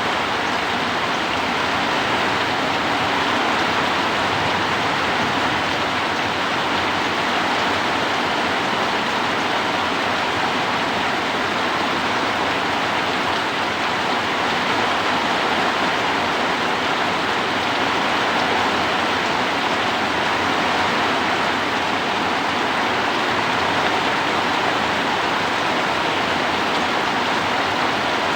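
Heavy rain driven by strong wind, falling as a steady, even rush with no let-up.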